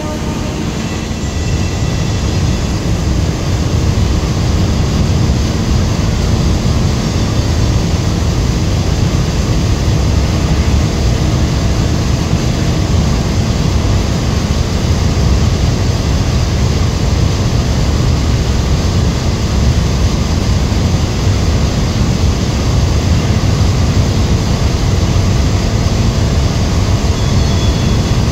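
Steady, loud rush of turbulent water churning in a concrete pit where a strong inflow pours in, with a deep rumble underneath.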